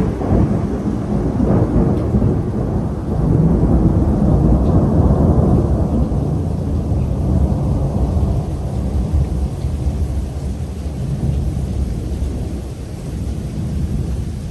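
A long roll of thunder rumbling over steady rain, swelling a few seconds in and then slowly dying away.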